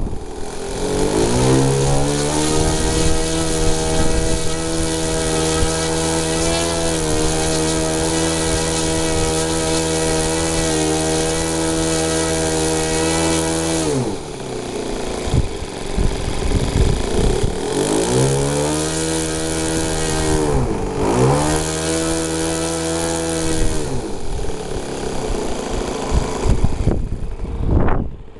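Falcon 56 RC model airplane's engine and propeller revving up and running at a steady high throttle for about thirteen seconds. It then drops back, and is revved up and held twice more for a few seconds each before throttling down again near the end.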